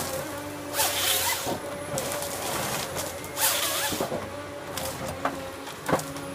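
Eltec 227 tracked harvester's Cummins diesel and hydraulics running with a steady hum while its Logmax 7000 head works a tree. Two short, loud bursts of noise, about a second in and about three and a half seconds in, are followed by sharp cracks near the end.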